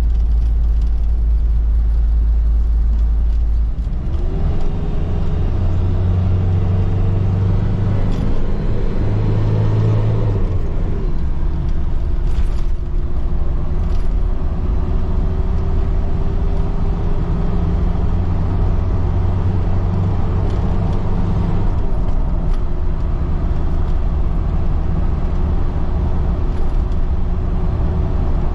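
Motor vehicle on the road: a steady low engine and road rumble. About four seconds in the sound shifts, and the engine note then rises slowly, as when gaining speed.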